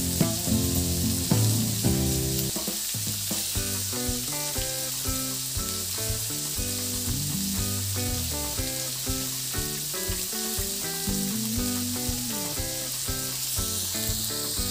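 Vegetables sizzling in hot oil in a wok, a steady frying hiss. Background music with a melody and a steady beat plays over it.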